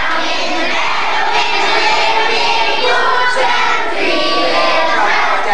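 A large group of children singing together at full voice, many voices at once.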